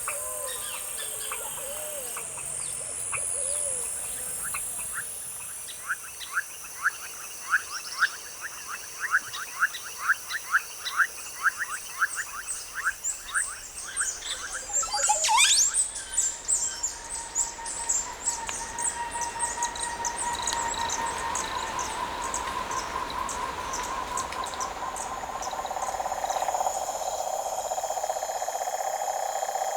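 Tropical forest ambience: many birds calling over a steady high-pitched background. A run of quick repeated calls comes through the middle, then a loud sweeping call about halfway, and the background changes near the end.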